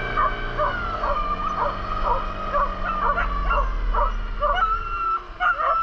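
Hunting dogs in a boat yelping and whining excitedly, a dozen or so short high cries ending in a drawn-out whine. Under them the boat's motor drones and drops in pitch as it throttles down.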